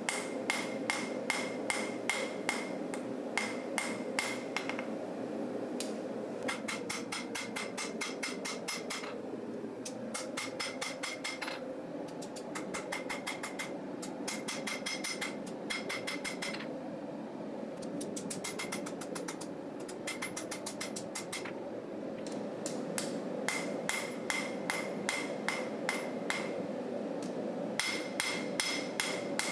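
Hand hammer striking hot steel on an anvil, peening and spreading a forged knife blade's heel. The blows come in runs of several seconds at about four a second, each with a short metallic ring, with brief pauses between runs, over a steady rushing background.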